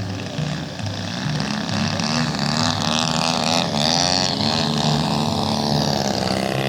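Radio-controlled model airplane engine buzzing in flight, its pitch wavering with throttle, then falling as the plane passes by in the last couple of seconds.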